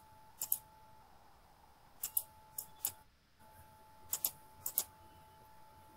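Sharp clicks from computer controls, mostly in close pairs, about ten in all, as slides are changed in a presentation. A faint steady tone runs underneath.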